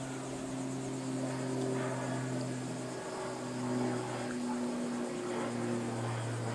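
A steady low mechanical hum with a few held tones, unchanging throughout.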